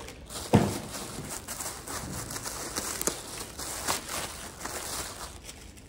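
A mail parcel being handled and opened by hand: irregular rustling of packaging with scattered clicks and a knock about half a second in.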